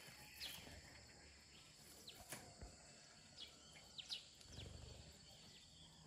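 Faint, scattered short chirps from a small flock of sparrows, a dozen or so brief falling notes over a quiet background hiss.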